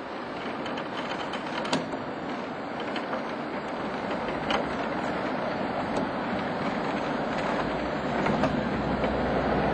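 FS E.656 electric locomotive rolling slowly past at close range: a steady mechanical running noise that grows louder, with a few sharp clicks from the wheels on the rails and a deeper rumble coming in near the end.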